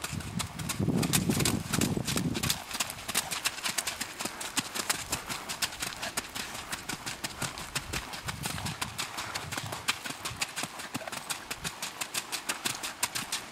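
Welsh pony's hoofbeats at a trot, a steady rhythm of crisp footfalls on the arena footing.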